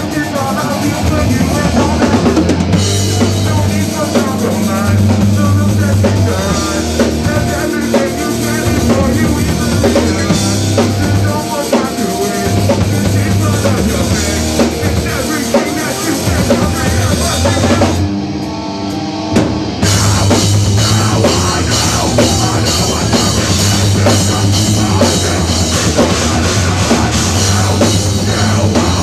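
Rock band playing at full volume with drum kit, bass and guitar. About two-thirds of the way through, the drums and bass drop out for a couple of seconds before the full band crashes back in.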